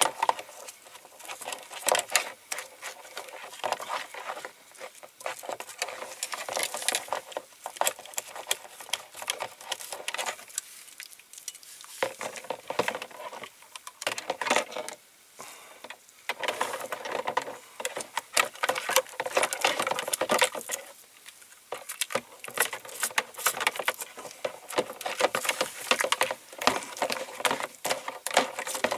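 Brush scrubbing the paint-stripped diecast metal body of a toy van: fast, irregular scratchy strokes with small clicks and rattles, pausing briefly twice, as softened paint from the caustic soda strip is worked off the casting.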